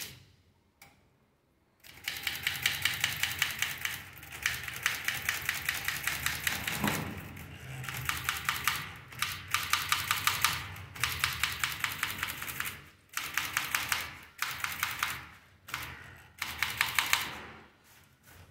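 Manual typewriter being typed on in fast runs of keystrokes, with short pauses between runs.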